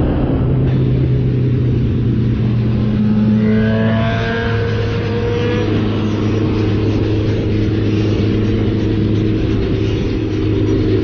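Suzuki Hayabusa's inline-four engine running steadily at cruising speed, with wind rush, heard from the pillion seat. From about three and a half to six seconds in, a second, higher engine note climbs in pitch as a nearby motorcycle accelerates.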